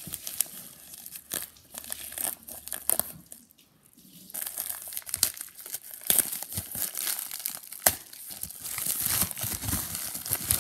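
Grey plastic mailer wrapping being crinkled and torn open by hand: irregular crackling and rustling, with a short lull a little over three seconds in.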